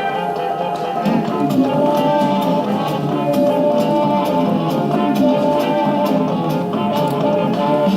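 Instrumental background music with drums and sustained melodic notes.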